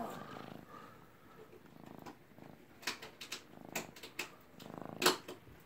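Long-haired tabby cat purring close up, the purr swelling and fading in repeated cycles, with a few sharp clicks in the second half, the loudest near the end.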